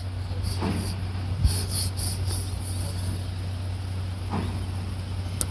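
C11 steam locomotive moving slowly at walking pace, with irregular puffs of hissing steam over a steady low hum. A knock comes about a second and a half in and a sharp click near the end.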